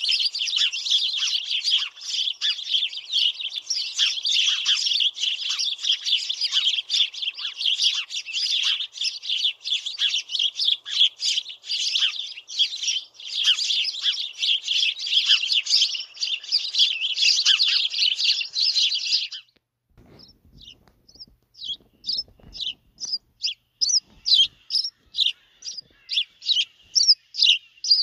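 A flock of house sparrows chattering, a dense mass of overlapping chirps. About two-thirds of the way through it cuts off. Then come separate sparrow chirps repeated steadily, two to three a second, growing louder.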